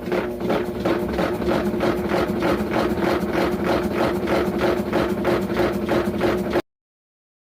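Electrolux LTD13 top-loading washing machine running, a steady motor hum under a rhythmic rubbing, knocking noise about three times a second: the noise the machine was making. The sound cuts off abruptly near the end.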